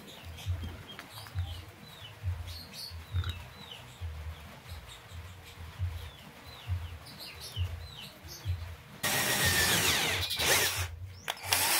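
Cordless drill running and boring into a blue PVC fitting in two short runs that start about 9 s in, with a brief stop between them. Before that there is only quiet handling of the drill, with faint high chirps.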